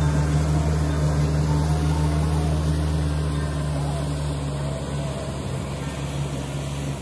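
Four-wheel farm tractor engine running steadily as it tills a flooded rice paddy, its hum slowly fading as the tractor pulls away.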